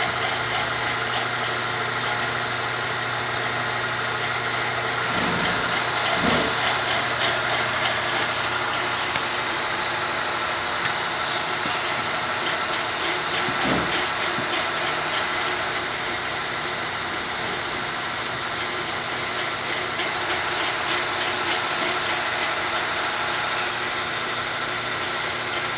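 Small engine of a motorized power sprayer running steadily at a constant speed, pumping termiticide through a hose to a soil-injection rod. A few brief low knocks sound about six seconds in and again about fourteen seconds in.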